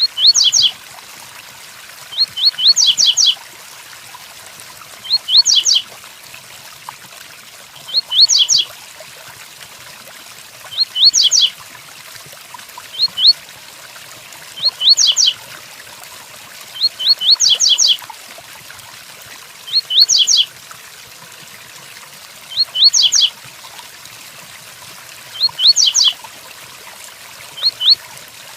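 Double-collared seedeater (coleiro) singing the 'tui-tui' song: short phrases of a few quick, sharp rising notes, repeated about every two to three seconds, over a steady hiss of rain.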